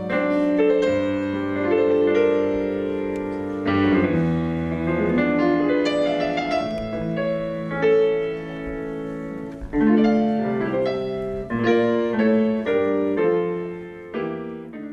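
Solo acoustic piano playing a melody over held chords, with notes struck and ringing on in a steady flow.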